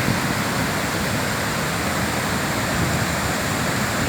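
Waterfall on a river: a steady, loud rush of falling water.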